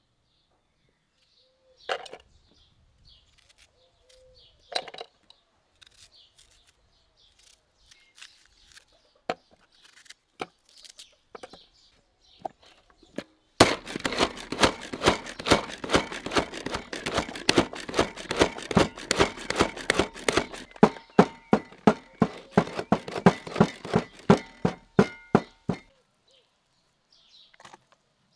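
Manual food chopper working through onion: a fast run of even clacking strokes, about four a second, that starts about halfway in and lasts around twelve seconds. Before it there are only a few scattered knocks.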